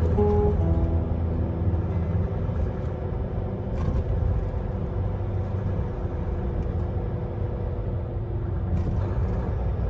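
Truck driving at a steady cruise, its engine and tyre noise heard from inside the cab as a steady low rumble.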